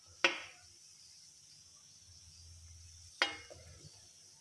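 A steel spoon clinks against the side of a kadai twice, each a short metallic knock with a brief ring, while bread gulab jamun balls fry in oil with a faint steady sizzle.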